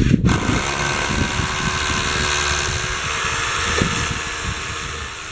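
Corded power drill running steadily, boring into the rendered masonry wall beside a gate post; it starts just after the beginning.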